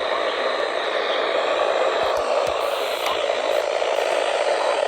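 Steady hiss of radio static from a receiver between broadcast messages, with no voice or alert tones.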